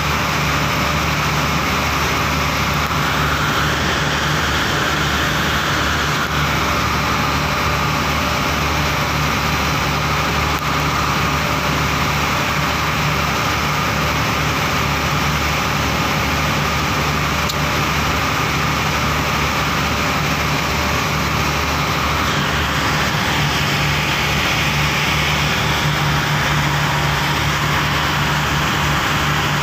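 Motorized outrigger pump boat under way: its engine runs steadily at cruising speed over the rush of water churned along the hull.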